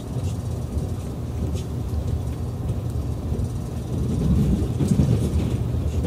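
Low, steady rumble inside a 787-series electric express car as the train pulls away from the platform, growing louder about four seconds in, with a few faint clicks.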